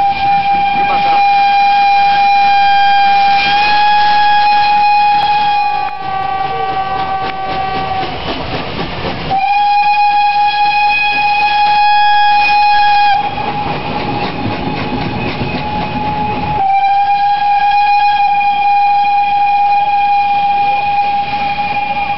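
Steam locomotive whistle sounding in three long, steady blasts: the first lasts about eight seconds with a slight step in pitch partway through, the second about four seconds, and the third starts past the middle and is still held at the end. A rushing noise fills the gaps between blasts.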